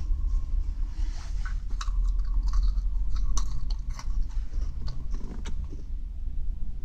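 Close-up chewing and crunching of Kancho and Choco Songi, small crisp biscuit snacks with chocolate, in a person's mouth: scattered crackles and clicks over a steady low hum.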